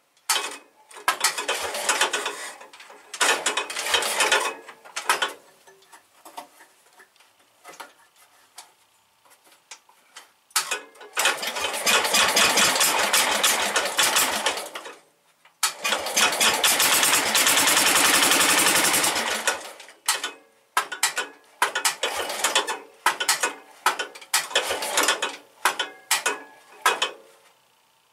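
Early Kohler K-series single-cylinder engine being cranked by its electric starter in repeated bursts without starting. The longest bursts last about four seconds, and short ones come about a second apart near the end. It is a cold start in freezing weather with the choke on.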